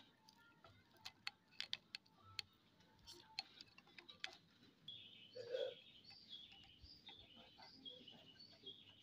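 Faint small clicks and taps of a metal spoon against a plate and crackers as sweet cassava paste is spread onto gabin crackers. From about halfway, faint repeated bird chirps come in.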